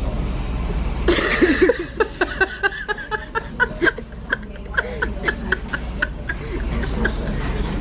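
A person laughing in a long run of short, repeated snickers, starting about a second in and going on, a few pulses a second.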